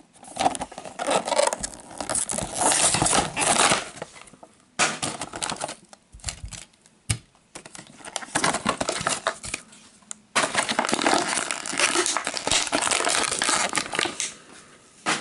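Clear plastic blister of a Hot Wheels package being pulled apart and handled, crackling and crinkling in three long stretches with a few sharp clicks in between.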